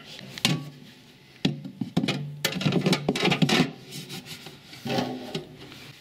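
Wire fridge shelf being pulled out and pushed back into the fridge's plastic liner, rattling, scraping and clicking against the moulded runners in several short bursts.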